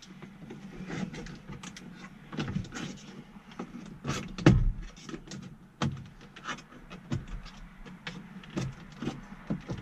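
BMW 335i interior dashboard trim being pried loose with a trim removal tool: irregular clicks, creaks and knocks as the retaining clips let go one after another, the loudest about four and a half seconds in.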